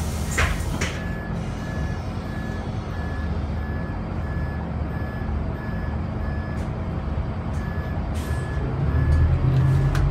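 Bus warning beeper sounding a short high beep about twice a second over the idle of the Scania DC9 five-cylinder diesel. About nine seconds in the engine picks up and gets louder as the bus pulls away.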